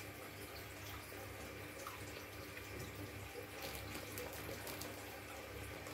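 Faint, steady hiss of background noise with a low hum, broken by a few soft clicks about three and a half seconds in.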